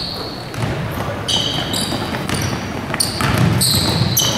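Basketball game on a gym floor: a basketball bouncing, with repeated short, high squeaks of sneakers on the hardwood.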